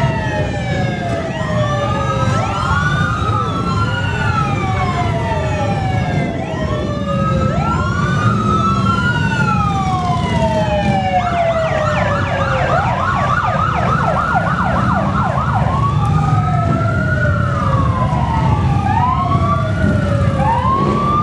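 Several motorcycle-mounted emergency sirens wail over one another, each sweep rising and then falling. About halfway through, one switches to a fast yelp for several seconds. Underneath runs the steady low rumble of many motorcycle engines riding past at parade pace.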